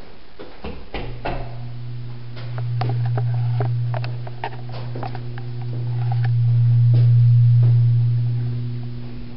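Steady electrical hum at mains pitch that starts about a second in and swells louder twice, with scattered light clicks and knocks over it.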